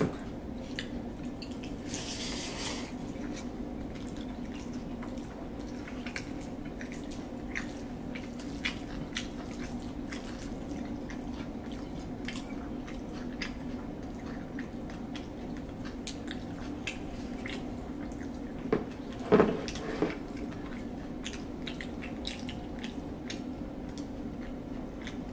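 Quiet eating sounds: scattered small wet clicks and smacks of people chewing and eating rice with their fingers off plates, over a steady low hum. A brief louder sound comes about three quarters of the way through.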